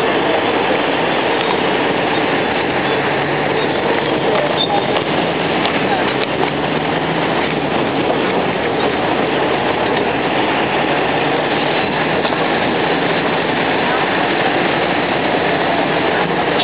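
Steady running noise of a road tourist train moving through city traffic, heard from inside one of its open-sided carriages.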